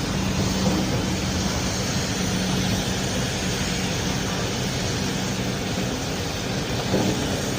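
Steady machinery drone: a constant hum over a wash of noise, with no clear rhythm or change.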